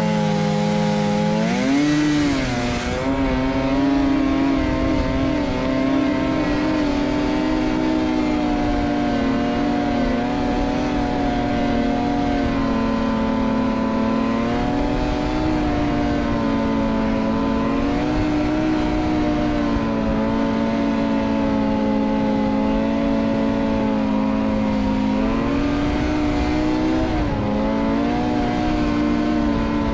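Snowmobile engine running under way, its pitch climbing as it speeds up in the first couple of seconds, then holding fairly steady with small rises and dips as the throttle eases on and off.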